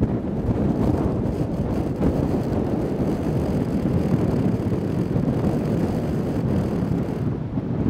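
Strong hurricane wind buffeting the microphone: a steady, low, fluttering rumble that never lets up.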